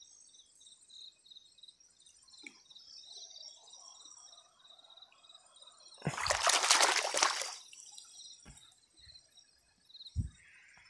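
Water splashing and sloshing for about a second and a half, some six seconds in, with a short low thump near the end; night insects chirp in a steady pulsing row throughout.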